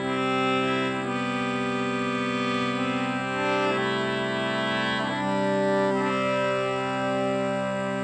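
Indian hand-pumped harmonium playing a slow melody of held reed notes over steady low notes, with the tune moving to a new note about every second.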